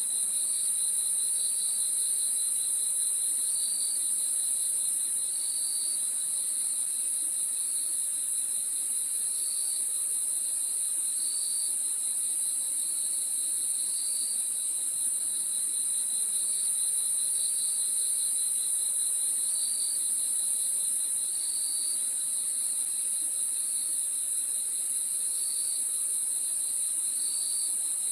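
Chorus of crickets at night: a constant very high-pitched trill, under it a lower, rapidly pulsing trill, with short chirps repeating every couple of seconds.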